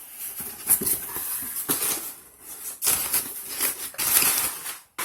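Irregular rustling and crinkling of packaging being handled, in uneven bursts that stop abruptly near the end.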